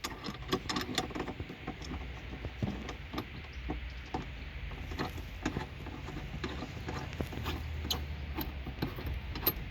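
Front seatbelt retractor and webbing being worked by hand: a run of irregular light clicks and rattles as the belt is pulled out and fed back to check that the retractor works.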